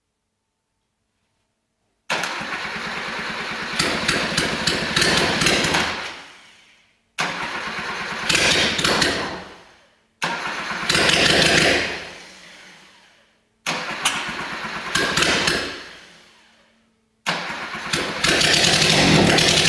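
Rebuilt Suzuki F10A four-cylinder engine on its first start after an overhaul, running in short spells that each die away, with silent gaps between them, five times; the last spell keeps running.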